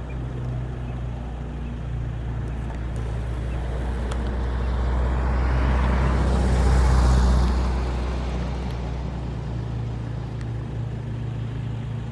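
Firefighting water-bomber aircraft flying low past: its engine noise swells to a peak about seven seconds in, then fades as it turns away. A steady low hum runs underneath.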